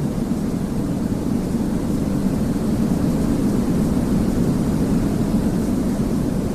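Soft, steady white noise for lulling a baby to sleep: an even, deep rushing hiss, heaviest in the low range, that does not change.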